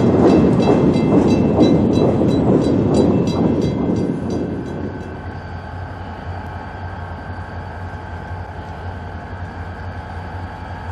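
Train wheels clicking over rail joints about three times a second, fading away. About five seconds in it gives way to a steady low hum of a diesel locomotive running at idle, the train stopped short of a tree fallen across the track.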